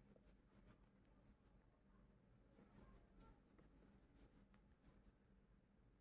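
Near silence, with faint, irregular scratchy ticks and rustles of a 4 mm metal crochet hook drawing cotton yarn through single crochet stitches.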